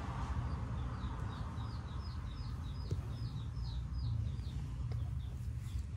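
A quick run of short, high, falling chirps, about four a second, starting about half a second in and stopping about four seconds in, over a low steady rumble.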